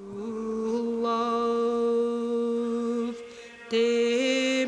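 Music of long held chords. The chord fades about three seconds in, and a new chord starts a moment later.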